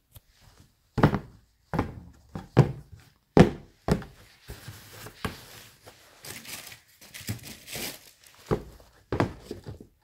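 Sneakers being handled and set down on a cardboard shoebox: a run of dull thumps, then a few seconds of rustling, then two more thumps near the end.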